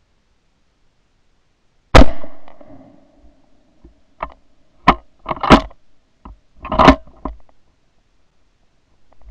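A rifle shot about two seconds in, a sharp report that rings out for about a second. It is followed by several shorter, sharp, loud cracks.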